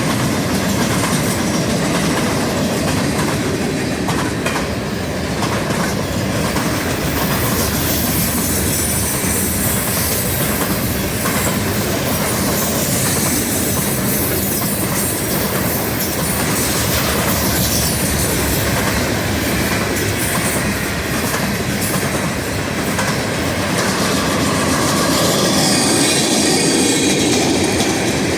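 Freight train cars rolling past, steel wheels clattering steadily on the rails, with a high wheel squeal that rises twice and fades again.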